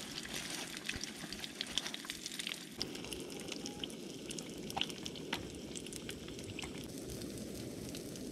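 Oil sizzling in a small frying pan on a portable gas stove as a piece of fish fries, with many small scattered crackles and pops.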